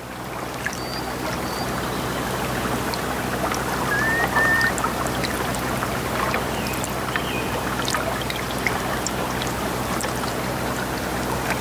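Water lapping and trickling against shoreline rocks: a steady wash sprinkled with many small drips and splashes. A few short whistled bird calls come through about a second in, about four seconds in and around seven seconds.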